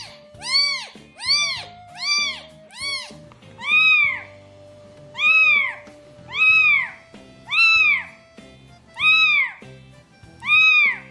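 Very young kitten mewing over and over: high, thin cries that each rise and fall, about ten of them, short and quick at first, then longer and about one a second. Soft background music runs underneath.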